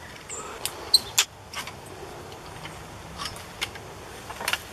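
Scattered light clicks and knocks over soft rustling: footsteps and handling noise of someone at the foot of a steel ladder tree stand, starting up its rungs.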